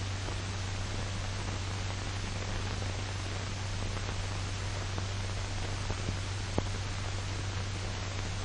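Steady hiss and low hum of an old film soundtrack with no narration or music, with two faint clicks about six seconds in.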